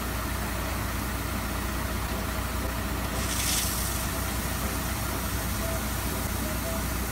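Water tanker truck's engine running steadily as it drives slowly while spraying water, with a constant hiss of spray; the hiss grows brighter for about half a second around three seconds in.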